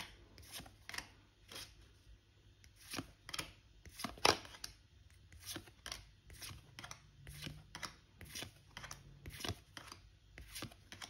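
Trading cards being dealt one at a time from a hand onto piles on a tabletop: a run of light card slaps and slides, about two a second.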